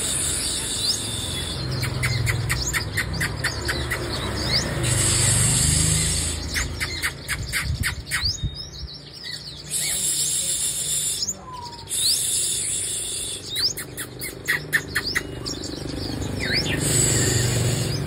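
Caged female sunbird calling: several bouts of rapid, high, thin chirps run together into short trills, with single sliding chirps between them.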